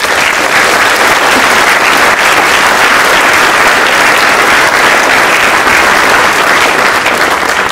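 Large audience applauding, breaking out suddenly and holding steady, then thinning near the end.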